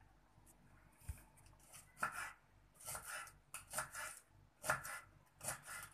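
Kitchen knife slicing long thin green peppers into rings on a wooden cutting board, in short quick runs of cuts about once a second, starting about a second in.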